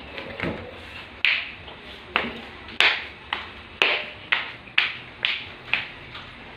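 A rubber slipper slapping on a tile floor, about nine sharp slaps in a row at roughly two a second, each with a short ring.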